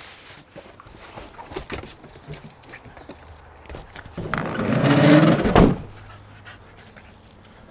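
Sliding side door of a Ram van pulled shut: it rumbles along its track for about a second and a half, growing louder, and latches with a slam. A few light knocks and clicks of gear being handled come before it.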